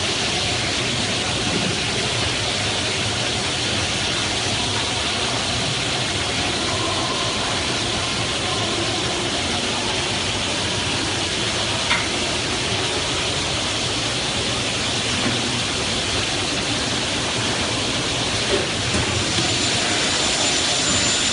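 Steady running noise and hiss from a double-head aluminium cutting saw, with a single short click about twelve seconds in.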